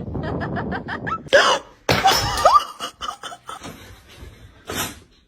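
A person laughing in a quick run of short pulses, followed by a few louder, sudden bursts.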